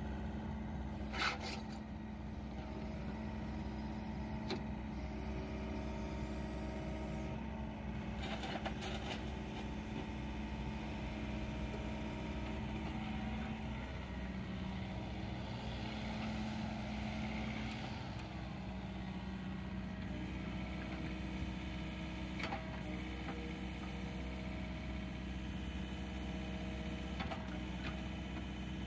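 Yanmar ViO55-6A mini excavator's 47 hp Tier 4 diesel running steadily while the boom and bucket are worked, its pitch dipping slightly for a few seconds about halfway through. A few sharp metallic clanks sound at intervals.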